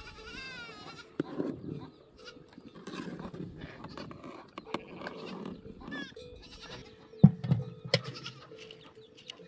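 Livestock bleating: a wavering call just after the start and another about six seconds in, among scattered knocks and clatter, the loudest a sharp knock a little after seven seconds in.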